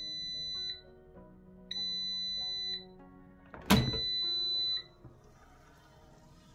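Smart Fryer air fryer's end-of-cooking alarm: a high beep about a second long, repeating about every two seconds, signalling the timer has run out. About three and a half seconds in, a loud clunk as the fryer's basket is pulled out. Soft background music plays underneath.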